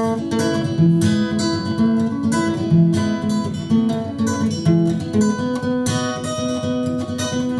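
Acoustic guitar playing an instrumental break between sung verses: strummed chords with picked melody notes at a steady rhythm.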